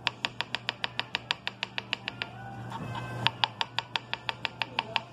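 Knife chopping rapidly through a cucumber onto a cutting board: quick sharp taps, about seven a second, that stop for about a second midway and then start again.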